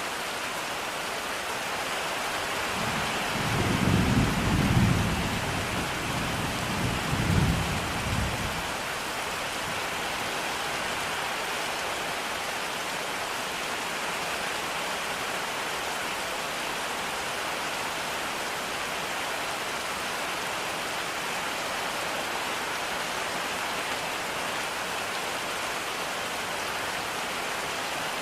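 Steady rain falling as an even hiss. A low, rolling thunder rumble sets in about three seconds in, swells twice and dies away after about five seconds.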